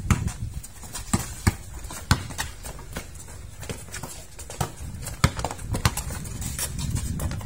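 Basketball being dribbled on a concrete court: a series of irregular sharp thuds as the ball bounces, mixed with players' footfalls.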